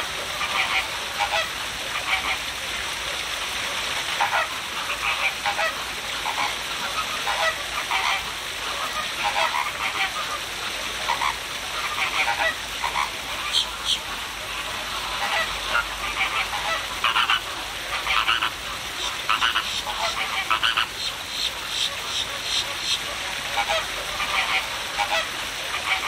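Flamingos honking in short calls, many times over, over the steady splash of a small waterfall falling into a pond.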